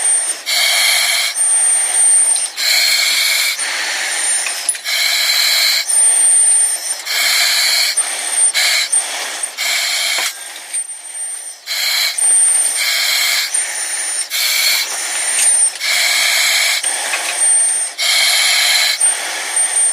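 Breathing through an oxygen mask: hissing breaths in and out, one cycle about every two seconds, with a thin high whistle on one phase of most breaths.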